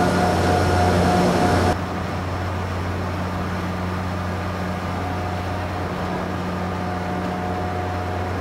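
Steady drone of heavy machinery in a thermal power plant hall: a low hum with a faint higher whine. About two seconds in it drops abruptly to a quieter, duller hum that goes on steadily.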